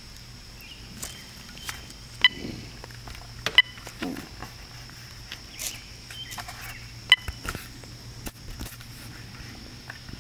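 Two cats crunching dry kibble from a paper plate: scattered small crunches and clicks, with a few sharper ones.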